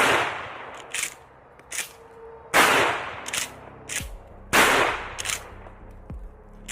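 Remington 870 pump-action shotgun firing magnum slugs: three loud shots about two seconds apart, each with a ringing tail. Between the shots the pump is racked, heard as short metallic clicks.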